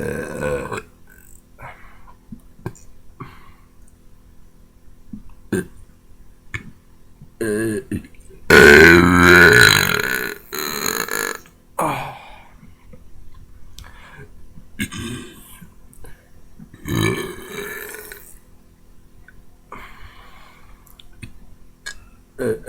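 A man belching again and again: about six burps of varying length, the loudest and longest about nine seconds in and lasting around two seconds, with short clicks in the pauses between.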